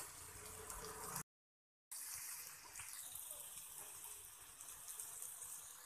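Faint steady hiss of a gas stove burner flame with a lump of charcoal heating in it. The sound drops out completely for about half a second, about a second in.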